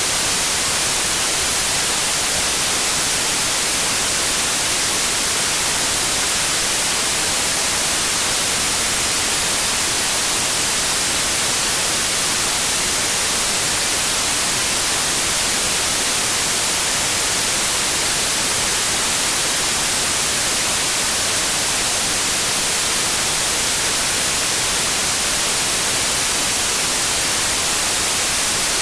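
Steady, loud white noise: an even hiss that doesn't change, strongest in the high end.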